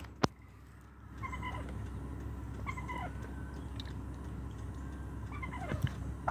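Wild turkey calling: a short series of high, whiny notes about a second in, another series around three seconds in, and a single falling call near the end. A sharp click comes just after the start.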